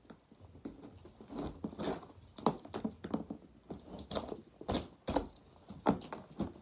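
Large cardboard box being handled and worked open by hand: an irregular run of rustles, scrapes and sharp knocks, the loudest about two and a half, five and six seconds in.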